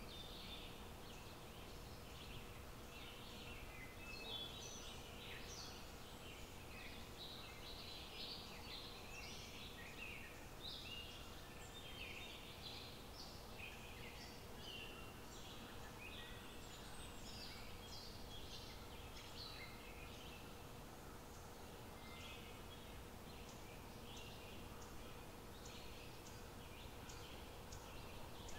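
Birds chirping and calling in short, irregular bursts over a low, steady outdoor background noise.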